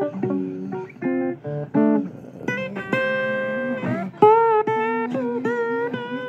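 Blues guitar playing a single-note lead fill: a quick run of short plucked notes, then longer held notes with vibrato in the second half.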